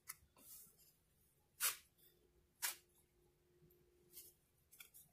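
Drywall broad knife scraping and smoothing wet joint compound over a patch, feathering the edges: a few short, faint scraping strokes about a second apart.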